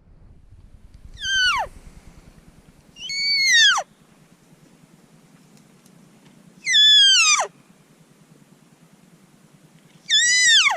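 Four cow-elk mews, spaced a few seconds apart. Each is a nasal call under a second long that starts high and slides steeply down in pitch.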